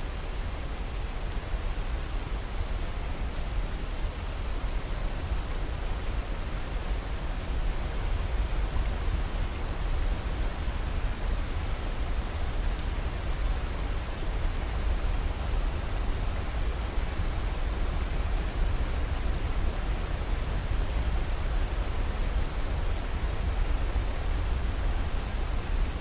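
Whitewater of a mountain river rushing over boulders below a waterfall: a steady, unbroken rush of water with a deep rumble underneath.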